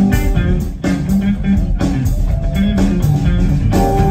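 Live band playing an instrumental groove: a bass line under drum hits and electric guitar, heard from the audience.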